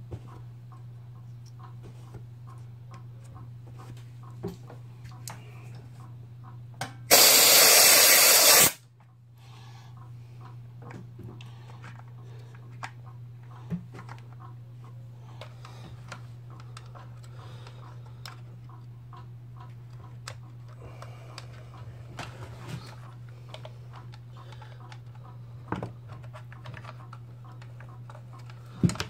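Scattered small clicks and taps of hand work on a Stihl MS 180 C chainsaw's housing over a steady low hum. About seven seconds in comes a loud hiss of about a second and a half that starts and stops abruptly.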